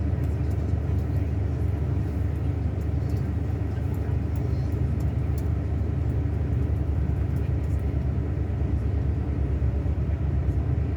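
Scania K360 coach's diesel engine running steadily, a low drone that holds an even pitch.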